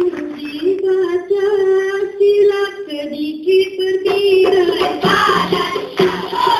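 A girl's solo voice singing a long, ornamented dikir barat line, holding and bending each note; about five seconds in, more voices come in with a steady low tone beneath them.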